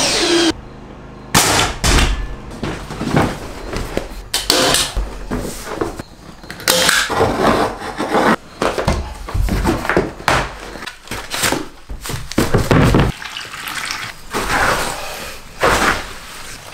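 Irregular knocks, thuds and scraping from hands-on shower-base work: a PVC shower pan liner being fitted and cut, and mortar being mixed with a trowel in a plastic tub.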